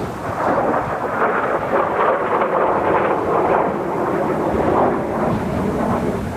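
Rumbling roar of Kawasaki T-4 jet trainers flying past, mixed with gusty wind buffeting the microphone.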